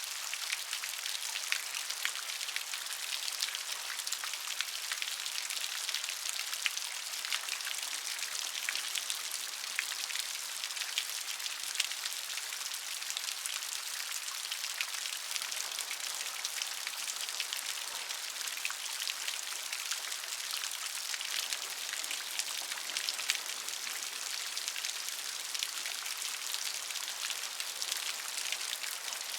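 Steady rain, with many fine drops ticking against a surface over an even hiss.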